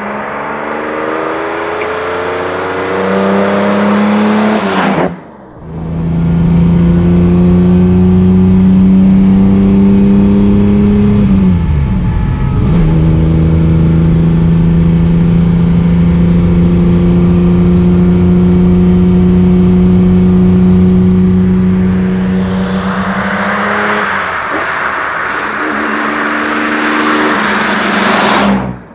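Ferrari 365 GT 2+2's 4.4-litre V12 engine running under way. It rises in pitch as the car approaches, then holds a long steady, loud drone at cruising speed in top gear, sagging in pitch once and recovering about halfway. Near the end the car passes close by.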